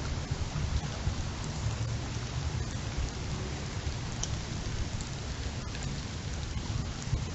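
Heavy rain falling steadily in a windstorm, with a constant low rumble underneath and a few sharp ticks of drops striking nearby.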